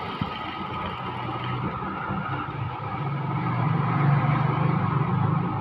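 Sewing machine running steadily as it stitches a cuff onto a shirt sleeve, growing louder from a little past halfway.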